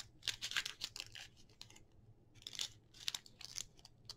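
Paper rustling and crinkling in many short scrapes as a stack of printed paper play money is handled and slid back into a paper envelope pocket of a handmade journal.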